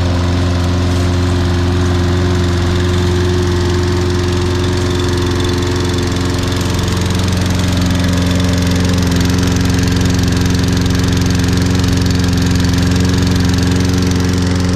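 Toro Recycler 22-inch mower's 190cc engine (model 20334) running steadily at a constant speed, still cold shortly after a cold start.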